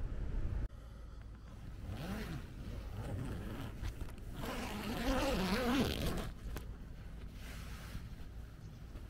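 Rooftop tent's zipper being pulled in two long strokes: a buzzing rasp that wavers up and down in pitch, louder in the second stroke. A low wind rumble cuts off abruptly in the first second.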